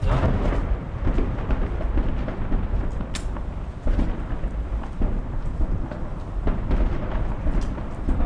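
Close urban combat: a loud, continuous low rumble with irregular bangs and cracks of gunfire and explosions.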